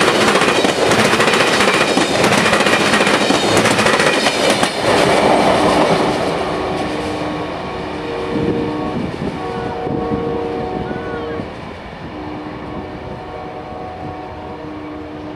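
Amtrak passenger cars passing close by, their wheels clattering over the rails, for about the first five seconds. After that, the lead Amtrak P42DC diesel locomotive's air horn sounds from a distance in several long blasts.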